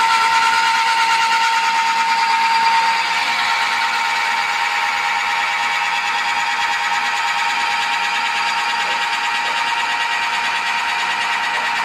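Automatic rebar coupler reaming machine boring steel coupler blanks, a steady high-pitched metal-cutting squeal, a little louder for the first three seconds.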